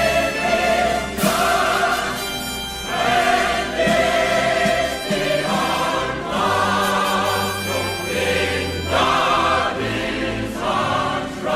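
Choir singing slow, held chords over a sustained low accompaniment, the chord changing every second or two.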